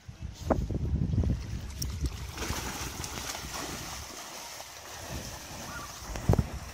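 A dog splashing as it bounds through shallow river water, a steady rushing splash that carries on for several seconds. Low rumbling of wind on the microphone comes in the first couple of seconds, and a sharp knock comes near the end.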